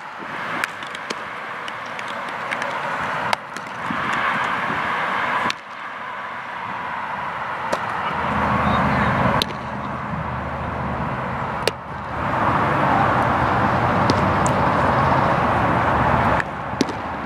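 Steady outdoor ballpark background noise from the camera microphone that jumps in level at each edit. A few sharp single knocks of a baseball striking a bat and a glove during fielding and catching drills.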